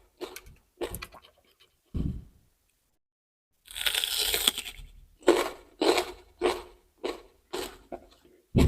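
Close-up crunchy chewing and biting of raw vegetables: a few crunches, a pause, a denser crackle lasting about a second, then steady chewing crunches about one and a half to two a second and a loud bite at the end.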